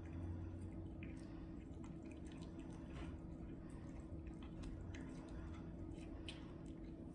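Two cats chewing raw chicken carcass: irregular wet, squishy smacks and small crunches as they bite the meat and bone, over a faint steady hum.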